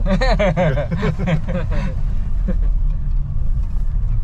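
Land Cruiser's engine and road noise as a steady low rumble. A person's voice is heard over it during the first couple of seconds.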